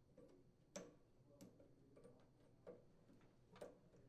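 Near silence broken by about five faint, irregular clicks as the rubber auger belt is worked off the snowblower's engine drive pulley.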